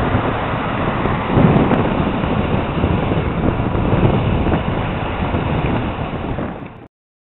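Road traffic passing close by under heavy wind rumble on the microphone. The noise swells about a second and a half in and cuts off abruptly near the end.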